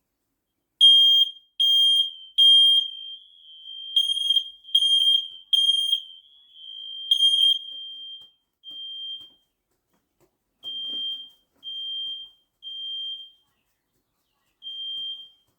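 Smoke alarm sounding high-pitched beeps in the three-beep alarm pattern while being tested: two rounds of three loud beeps, then a single beep. After that, fainter beeps from other linked alarms carry on at a slower, uneven spacing.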